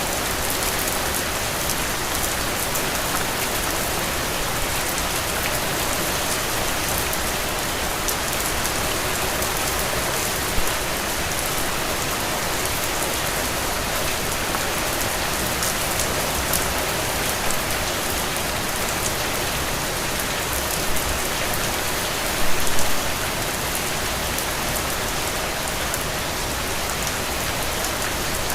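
Steady rain falling, an even hiss of drops on surfaces. A few brief louder knocks stand out, one about ten seconds in and a short cluster a little past twenty seconds.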